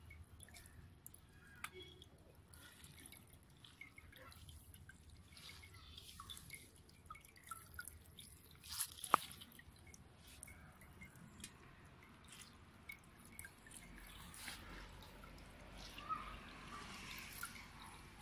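Faint dripping and trickling of homemade red wine as hands squeeze fermented grape pulp in a plastic colander, the juice draining into a steel pot below, with scattered small clicks and one sharper click about nine seconds in.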